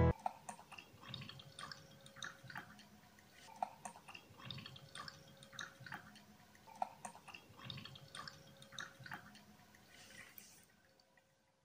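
Faint drips and small splashes of milk pouring into a glass, irregular and scattered, stopping about ten and a half seconds in, over a faint steady hum.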